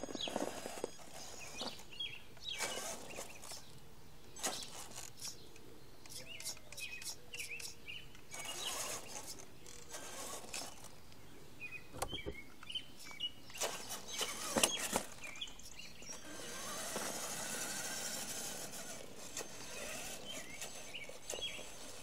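Small birds chirping off and on, with scattered sharp knocks and scuffs. From about two-thirds through, a steady rushing hiss of an electric Traxxas E-Maxx RC monster truck driving on asphalt.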